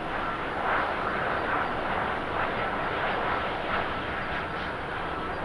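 Boeing 787-8 Dreamliner's jet engines on final approach: a steady rushing noise with a faint high whine.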